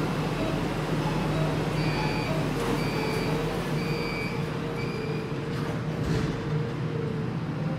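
Shenzhen Metro Line 2 train moving slowly along the platform behind closed platform screen doors, its traction motors whining steadily. Four short high beeps sound about a second apart midway, over a steady low hum.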